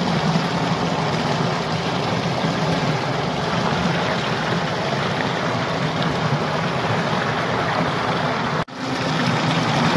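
Water pouring over a small weir and rushing over stones in a shallow stream, close to the microphone: a steady, loud rush that cuts out for an instant near the end.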